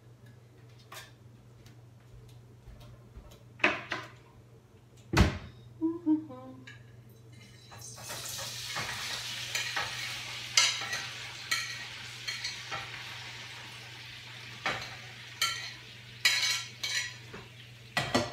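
Knocks and clinks of cookware, then from about eight seconds in a sizzle as tofu goes into the hot oil of a frying pan and fries, with utensil clatters against the pan over it.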